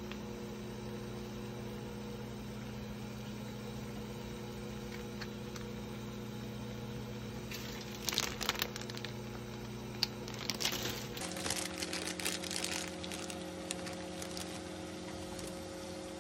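Water boiling in a frying pan under a steady low hum. A plastic noodle packet crinkles and rustles, in bursts about 8 seconds in and again from about 10 to 13 seconds, as it is handled and tipped over the pan.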